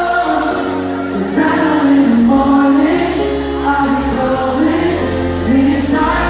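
Live band playing a song with singing over a steady bass, recorded from among the audience.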